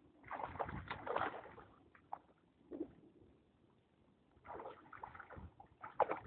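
Lake water splashing and sloshing in a few irregular bursts, each up to about a second long.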